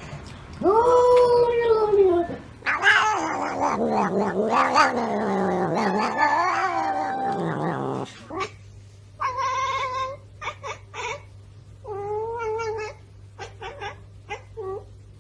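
A cat yowling loudly in long, wavering caterwauls, followed by a string of shorter meows in the second half.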